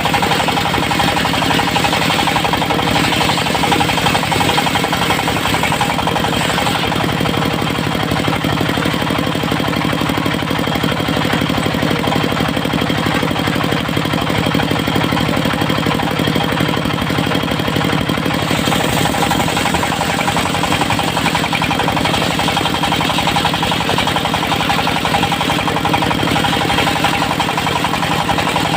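Engine of a portable circular sawmill running steadily with a fast, even beat.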